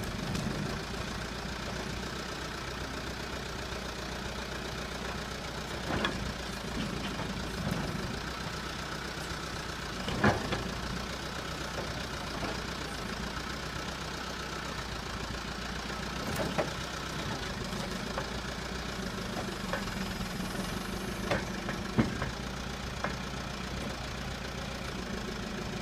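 Backhoe's diesel engine running steadily while it works a log, with a handful of sharp knocks and clanks from the machine and its load.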